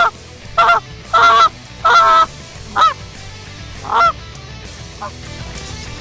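Canada goose honks and clucks blown rapidly on a hand-held goose call: about six loud, sharp notes in the first four seconds, a couple of them drawn out, then a faint one.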